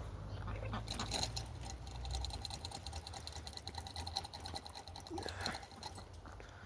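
Chickens pecking at scattered corn: a rapid, irregular run of sharp little taps as the beaks strike the kernels.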